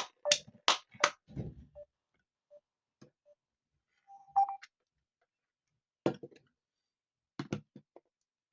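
Scattered sharp clicks and taps: several in quick succession in the first second, a short tone about four seconds in, then a few more clicks around six and seven and a half seconds in.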